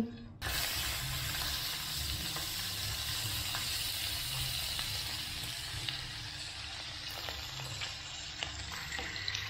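Whole goatfish sizzling in hot cooking oil as they are laid into the pan, with a few small crackling pops. The sizzle starts suddenly about half a second in and then holds steady.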